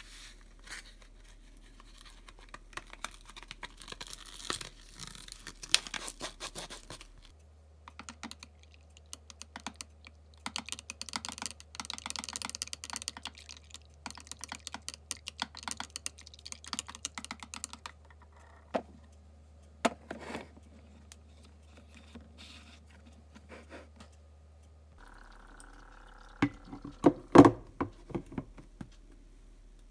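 Light plastic clicks and taps as yogurt starter powder is shaken out of its packet into a plastic tub of milk. Then comes a long run of rapid clicking as a spoon stirs the milk and knocks against the tub's sides. Near the end, a few loud plastic knocks as the yogurt maker's lid is fitted on.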